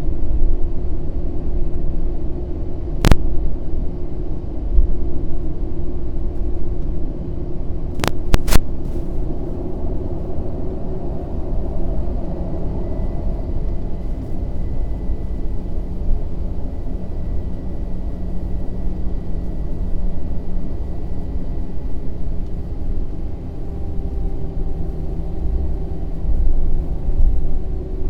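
Airbus A320 cabin noise from a window seat over the wing while taxiing: a steady low engine rumble with a steady hum. A sharp click about three seconds in and two more close together around eight seconds are the dying microphone popping.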